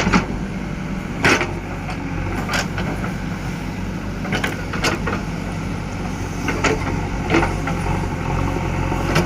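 Backhoe loader's diesel engine running steadily, with a series of sharp knocks and clanks every second or so.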